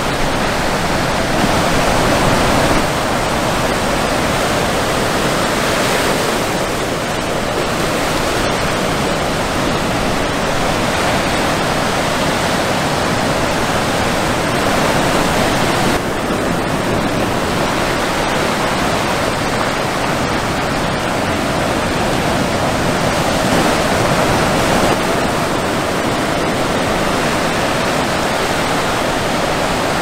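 Ocean surf breaking and washing shoreward in a continuous rushing hiss, swelling slightly as bigger waves break. The sound shifts abruptly about halfway through.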